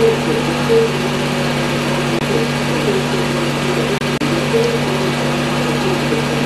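Steady mechanical hum and whirr: a low drone with wavering higher tones over a constant hiss.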